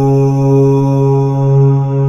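A sustained drone held steadily on one low pitch, rich in overtones, in the manner of a chanted mantra.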